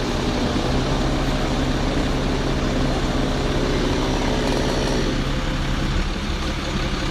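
Fire engine's diesel engine running steadily to power the aerial ladder, a low even hum under a rushing mechanical noise that eases slightly about six seconds in.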